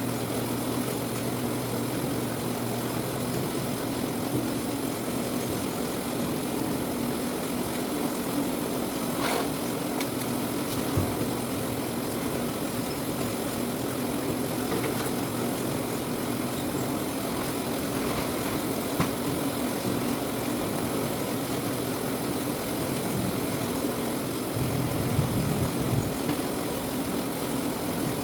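Citrus-sorting machine running with a steady mechanical hum, with a few faint knocks along the way.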